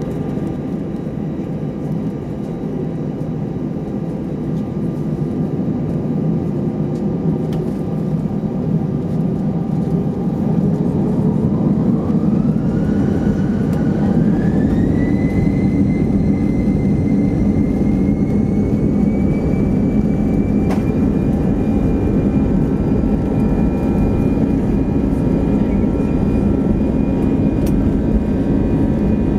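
Airbus A320 jet engines heard from inside the cabin over a steady rumble. About ten seconds in, a whine rises in pitch and the sound grows louder as the engines spool up for takeoff, then the whine holds at a high steady pitch.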